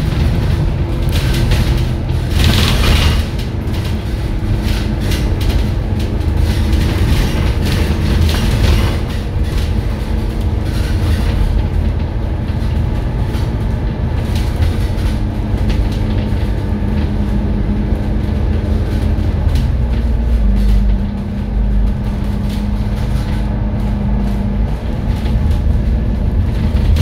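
Double-decker bus heard from its upper deck: a steady engine and drivetrain hum over heavy low road rumble, the hum shifting lower about twenty seconds in. A short rush of noise comes about three seconds in.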